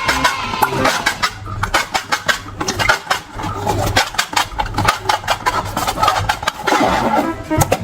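Slime being squeezed and worked by hand, a dense run of irregular sticky clicks and crackles with some soft low thumps.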